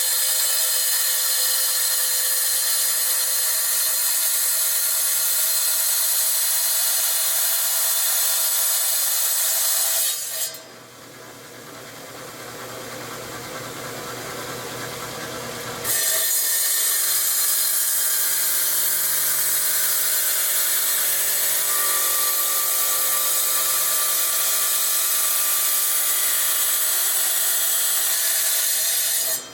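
Felker Tile Master tile saw's diamond blade cutting rock, a loud high-pitched grinding whine. About ten seconds in it drops suddenly to a much quieter sound for about five seconds, then the cutting resumes at full loudness and stops abruptly at the end.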